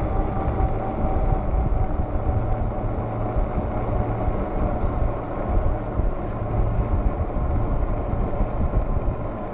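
Wind buffeting the microphone and fat tires rolling on pavement as the Engwe Engine Pro folding e-bike coasts downhill at about 14 mph, its hub motor in regenerative braking, with a faint steady whine.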